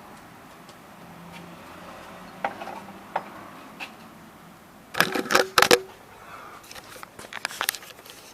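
Metal tools and parts clinking and clanking: scattered light clicks, then a burst of loud clanks about five seconds in with a short metallic ring, then more small knocks.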